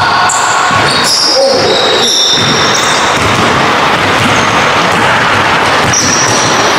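Pickup basketball on a hardwood gym court: a basketball bouncing and sneakers squeaking, with short high-pitched squeaks a second or so in and again near the end. A steady rushing noise runs under it, thickest in the middle.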